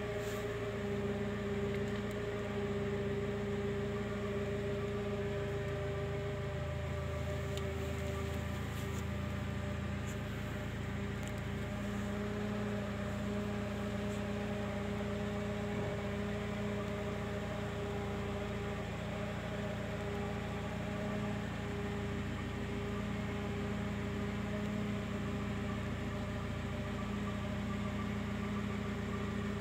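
Steady machine hum, several even tones held over a low noise, with a few faint clicks.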